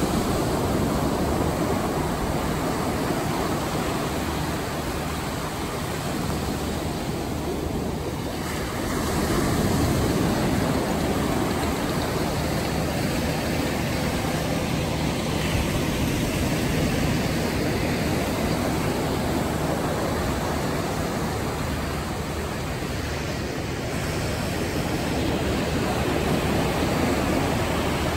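Ocean surf breaking and washing up a sandy shore: a steady rush of water that swells as waves break, most strongly about ten seconds in and again near the end.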